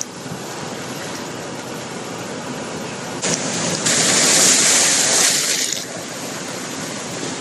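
Steady rushing water noise, swelling louder and hissier for about two seconds in the middle before settling back.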